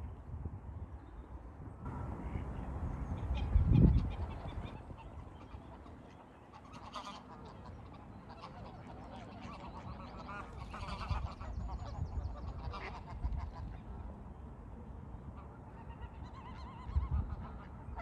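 Greylag geese honking and cackling in bouts, most through the middle and again near the end. Under the calls runs a low rumble that swells sharply about four seconds in.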